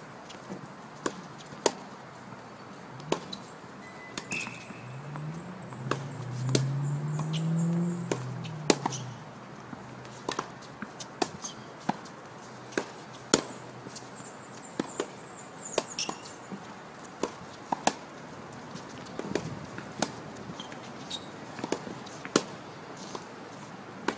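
Tennis balls being struck by rackets and bouncing on a hard court: sharp, irregular pops about one every half second to a second. A low hum rises and falls between about five and nine seconds in.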